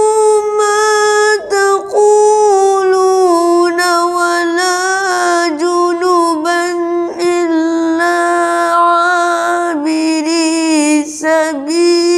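A boy's voice reciting the Quran in the melodic taranum style: long, ornamented sung phrases with held, wavering notes and short breaths between them.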